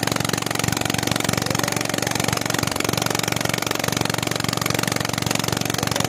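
Small engine running steadily at a fast, even beat, driving a centrifugal water pump that draws water up from a bore well.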